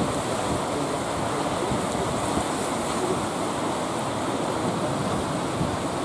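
Rough, storm-whipped sea: a steady rush of heavy surf and wind.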